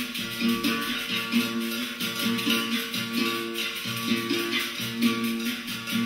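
A live band playing: a plucked, guitar-like string instrument over percussion, with a quick, steady beat running through it.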